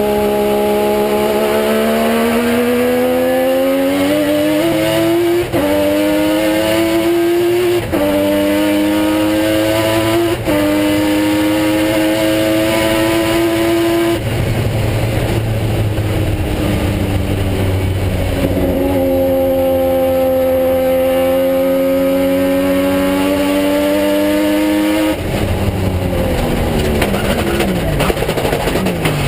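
Freshly built Mazda 20B three-rotor rotary engine of a race car, heard from inside the cabin under full throttle. It climbs in pitch through three quick upshifts in the first ten seconds, goes rough and low when the driver lifts about halfway, pulls up again, then falls away as the driver lifts and the revs drop near the end.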